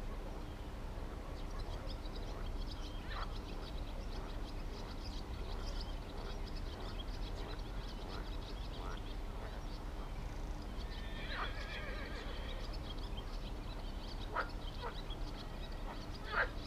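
Scattered short animal calls, with one longer call of several stacked tones about eleven seconds in, over a steady low hum.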